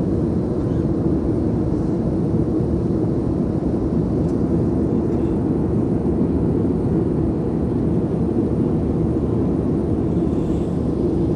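Steady low drone of a passenger aircraft in flight, engine and airflow noise as heard inside the cabin, unchanging throughout.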